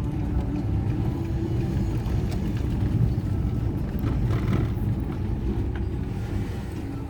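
Steady low rumble of a car driving, with road and engine noise and no sharp events.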